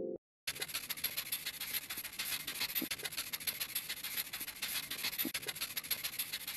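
Faint, even crackling and rustling noise with many fine clicks, a quiet background ambience in a short animation's soundtrack, starting about half a second in after a brief gap.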